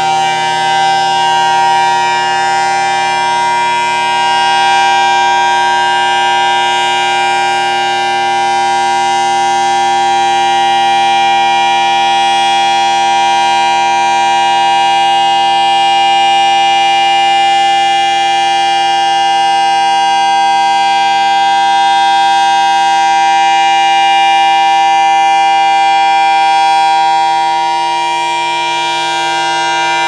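FS&S Thunderbolt 1000T tornado siren sounding a steady, loud tone at full speed. Its horn does not rotate because the rotator has failed, so the level stays even instead of sweeping. Its blower sounds to the owner as if it has had better days.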